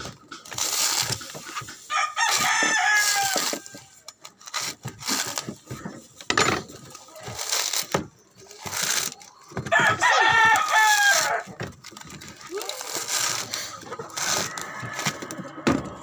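A rooster crowing twice, each crow about a second and a half long, a couple of seconds in and again about ten seconds in. Between the crows come repeated knocks, scrapes and tearing as a coconut husk is split with a machete and pulled apart by hand.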